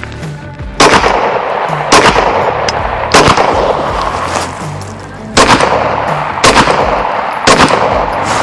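Pistol fire: three shots about a second apart, a pause of about two seconds, then three more shots about a second apart, the string of a qualification stage fired standing and then kneeling.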